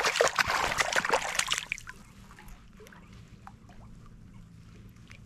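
Striped bass thrashing and splashing in shallow lake water while held by hand for release. The splashing dies away about a second and a half in, leaving faint drips and small sloshes.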